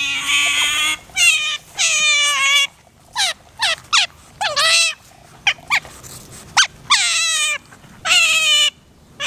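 Asian small-clawed otters crying for food: a string of high-pitched calls repeated every half second or so, the longer ones dropping in pitch at the end. The otters are hungry and begging to be fed.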